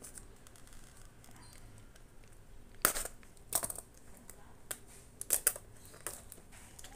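Plastic shrink wrap on a booster box crackling and crinkling as it is torn and peeled by hand: faint at first, then a handful of short, sharp crackles from about three seconds in.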